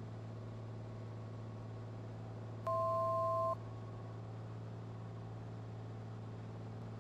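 Steady low drone of the Cessna 182's engine heard through the headset intercom. About three seconds in, a single two-tone electronic beep sounds for nearly a second.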